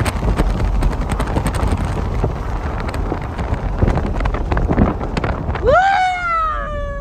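Wind buffeting the microphone through an open car window, over the low rumble of the car driving on a sandy track. Near the end a single long, high, clear tone rises sharply and then slides slowly down.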